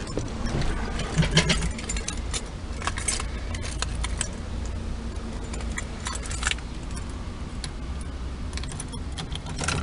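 Car keys jangling, with scattered small clicks and rattles over a steady low rumble.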